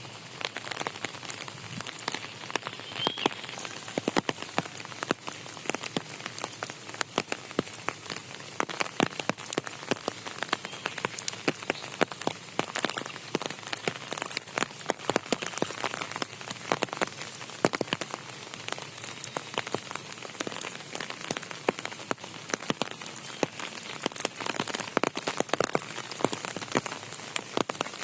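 Steady rain, with many separate drops hitting a nearby surface as sharp, irregular ticks over a constant hiss.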